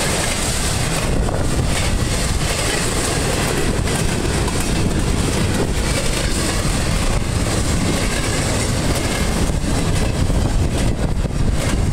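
Norfolk Southern intermodal freight train's cars rolling past close by: first flatcars carrying trailers, then empty well cars. There is a steady loud rumble of steel wheels on rail, with clacks as the wheels run over the rail joints.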